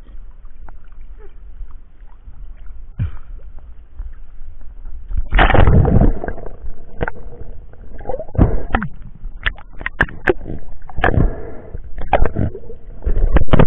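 Seawater sloshing and gurgling against an action camera as it moves at and below the surface, with a loud rush of water about five seconds in. After that comes a run of sharp clicks and knocks.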